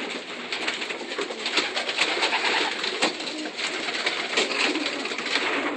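A loft full of racing pigeons cooing, with a steady scatter of many short scratchy taps and rustles among them.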